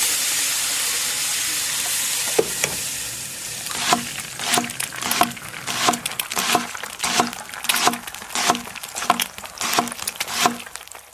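Food sizzling in a hot pan, then a knife chopping steadily on a cutting board, about eleven even chops at roughly one and a half a second.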